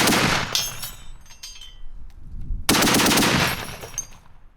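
Browning machine gun firing two short bursts of rapid shots, the second about two and a half seconds after the first. Each burst is followed by metallic clinking of ejected belt links.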